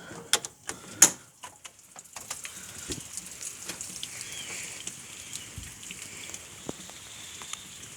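Hurricane rain falling steadily outdoors: an even hiss dotted with small drop ticks. A few sharp clicks and knocks come in the first two seconds, the loudest about a second in.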